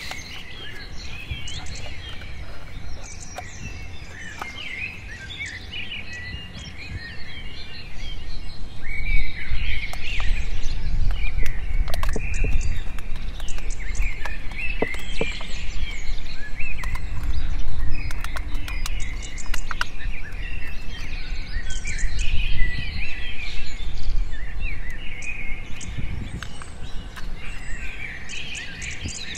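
Many small birds chirping continually, with the crackle and clicks of a thin plastic water bottle being cut with a blade. A low rumble comes in about a quarter of the way through and stays.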